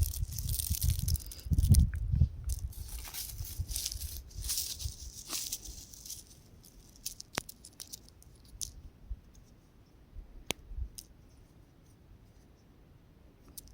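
Crumbling rock: gritty crackling and rattling of small pieces, busy for the first several seconds, then only a few sharp isolated ticks.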